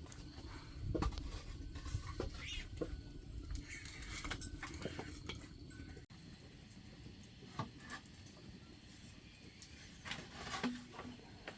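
Scattered light knocks and clicks over a low background rumble, with a sudden break about six seconds in.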